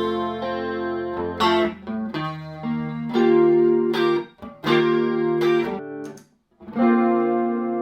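Clean electric guitar chords from a Fender Telecaster played straight into a Fender '57 Tweed Twin amp with no effects. The chords are strummed and left to ring, changing every second or so, with a short break about six seconds in before a new chord is struck.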